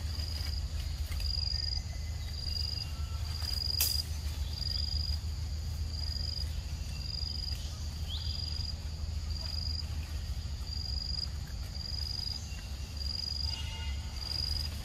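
An insect calling in short high chirps repeated evenly, a little more than one a second, over a steady low rumble. A single sharp click comes about four seconds in.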